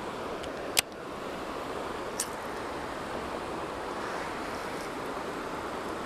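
Steady rush of river water running over the rocks below a spillway, with a sharp click about a second in and a fainter one about two seconds in.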